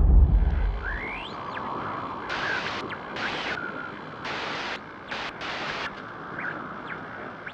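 Intro sound effect under the GoPro logo: the tail of a deep boom dies away in the first second, then a steady hiss with several sudden, sharp-edged surges of brighter hiss and a few quick pitch sweeps.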